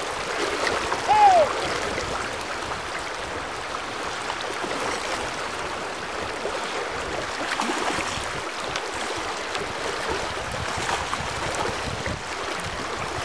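Steady rushing of a fast, shallow river, with one brief rising-and-falling whistle-like call about a second in.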